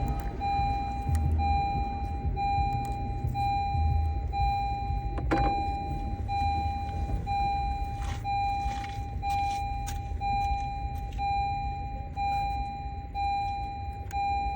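Car warning chime beeping steadily, about one and a half beeps a second, with a single sharp click about five seconds in.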